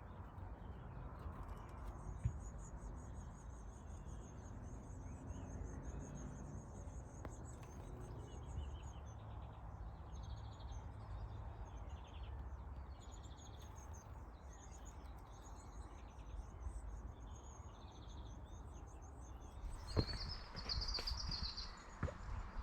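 Small garden birds chirping and twittering, many short high calls and trills over a steady low background rumble, with one louder call near the end.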